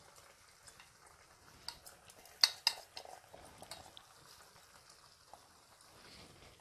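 Faint bubbling of boiling water in a pan with a few sharp clicks and knocks of a utensil against the pan, the loudest pair about two and a half seconds in.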